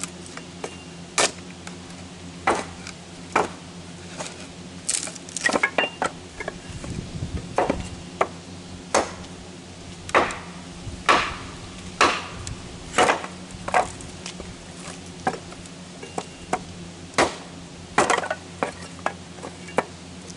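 Hatchet splitting kindling: sharp chops and cracks of wood, irregular strikes about once a second, some coming in quick clusters.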